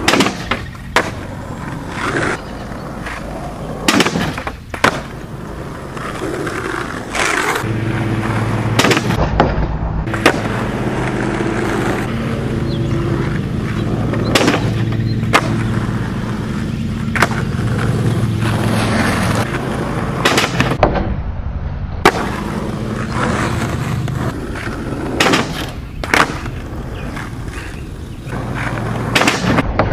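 Skateboard wheels rolling on asphalt, broken by repeated sharp clacks of the board popping, landing and slapping the ground as tricks are tried off a small kicker ramp.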